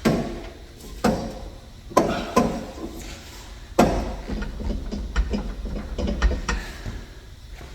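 Sharp metal clanks and knocks as a steel exhaust pipe is worked into place: about five loud ones in the first four seconds, then lighter clicks and taps.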